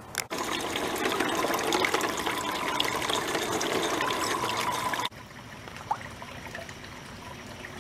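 Water trickling and splashing. About five seconds in it cuts off suddenly to a quieter, softer trickle.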